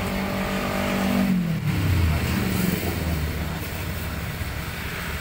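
A motor vehicle's engine on the road, loudest about a second and a half in as its note drops in pitch, then a lower steady engine hum.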